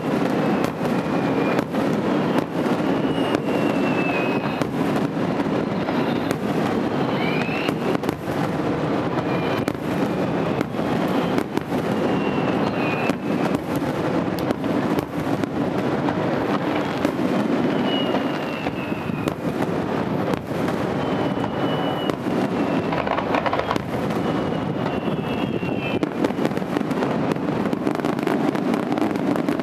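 Aerial fireworks shells bursting in rapid, continuous succession: a dense stream of bangs over a steady rumble, with a few short whistles among them.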